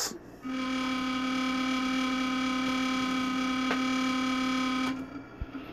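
Servo motor on a PID-controlled test rig buzzing with a steady pitched hum while the derivative gain is set very high; it stops about five seconds in. A single sharp click sounds a little past halfway.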